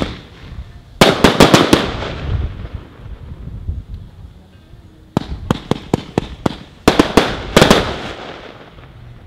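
Bonfireworks Silver Ice fireworks battery firing. A bang right at the start is followed by a quick cluster of bangs about a second in, with crackling trailing off. From about five seconds comes a rapid string of sharp bangs, ending in another cluster with a crackling tail.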